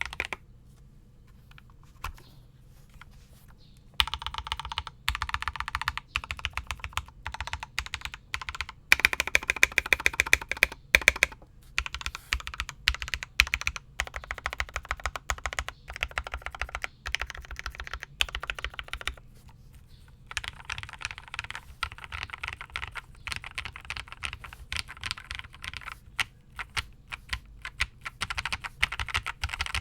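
Modded Logitech Pro X mechanical keyboard being typed on: lubed and filmed Gateron Pro Milky Yellow linear switches under stock keycaps, in a foam-dampened case, giving quick runs of keystrokes. The typing starts after a few seconds' lull broken by a single tap, and pauses briefly about two-thirds of the way through.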